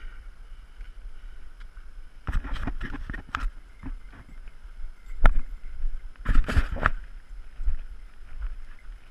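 Scattered knocks, scrapes and sharp clicks of a hiker's boots and trekking poles on rock and scree, over a low rumble on the microphone. The sounds come in a cluster a couple of seconds in, as one sharp click about halfway, and as another cluster just after.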